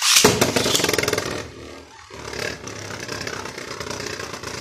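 Beyblade Burst spinning top launched with a pull-string launcher into a clear plastic stadium: a sudden loud start, then the metal-and-plastic top rattling and whirring as it skids around the stadium floor, settling after about a second and a half into a steadier, quieter grinding spin.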